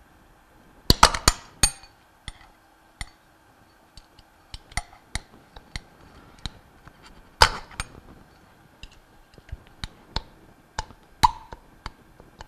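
Screwdriver clicking and clinking against the steel cover plate and old seal parts of a Bell & Gossett Series 60 pump bearing assembly as the seal's rubber boot is pried off the shaft. Scattered light metal clicks, with a quick cluster of louder ones about a second in and single louder clinks near the middle and near the end, the last ringing briefly.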